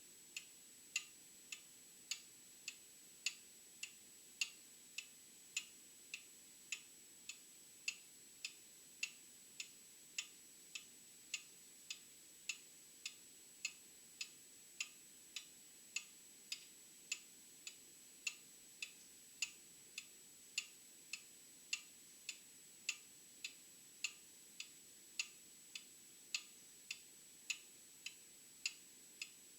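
Old clock ticking steadily at a little under two ticks a second, the ticks alternating louder and softer in a tick-tock pattern.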